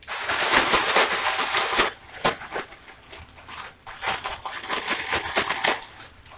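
Plastic bag crinkling and rustling as chicken wings are shaken inside it to coat them in seasoned flour. There are two bouts of shaking of about two seconds each, with a quieter pause between them.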